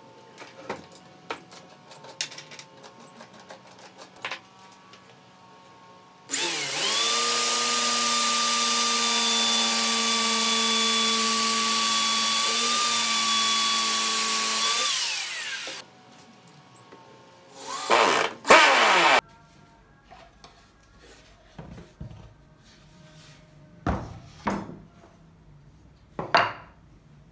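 Electric drill spinning up and boring into a clamped wooden board, a steady high whine for about nine seconds that winds down as it stops, followed a couple of seconds later by two short bursts. Light knocks and clicks of wood being handled on the bench come before and after.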